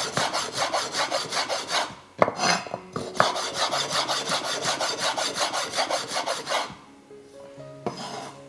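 Kitchen knife rapidly slicing an ingredient finely on a cutting board, in quick even strokes about six a second. The strokes come in runs broken by a short pause and stop about a second before the end. Soft background music notes follow.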